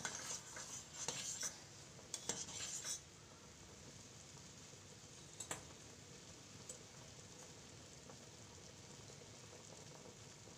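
A steel spoon stirring macaroni in a steel pot of boiling water, scraping and clinking against the pot for the first three seconds. After that only the faint, steady bubbling of the rolling boil, with one light clink about five and a half seconds in.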